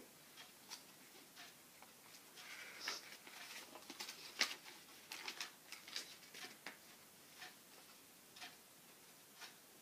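Faint, irregular rustling and soft ticks of thin book pages being leafed through in search of a page.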